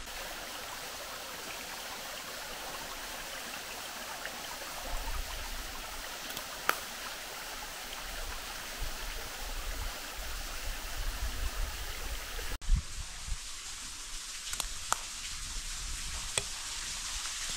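Steady rush of a small forest stream running over rocks, with a few faint clicks. An abrupt cut partway through changes the water sound.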